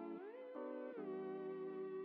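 Background music: sustained instrumental notes, with the pitch sliding up and then back down within the first second.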